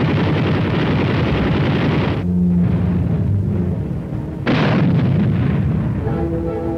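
Battle sound effects over an orchestral score: a long explosion blast that cuts off about two seconds in, then a second sharp blast about four and a half seconds in that dies away, with low sustained orchestral notes between and after.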